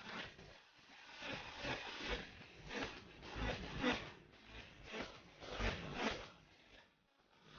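Close rustling and rubbing noise that swells and fades in uneven surges, about one or two a second, with low thumps under some of them.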